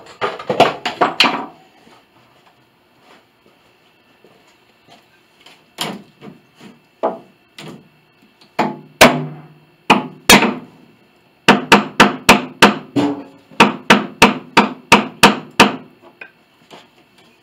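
Hammer blows on wood: a quick cluster of knocks about a second in, a few scattered single strikes, then a fast run of about a dozen blows at roughly three a second. They are knocking loose the wooden blocks wedged in around a grand piano's pinblock, which is holding it in the case.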